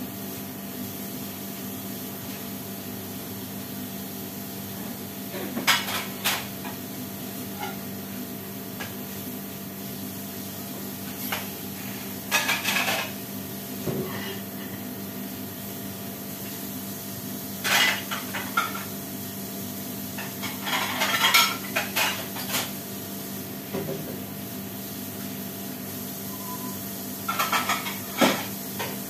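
Dishes and cutlery clinking and knocking in a kitchen sink as they are washed by hand, in scattered clusters of clatter over a steady background hum.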